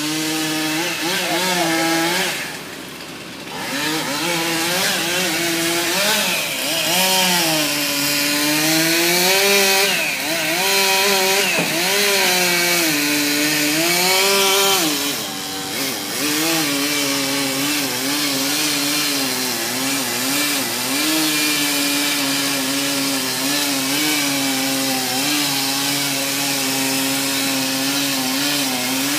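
Chainsaw engine running and cutting wood, its pitch rising and falling under load. It eases off briefly about three seconds in and again around the middle, then holds steadier near the end.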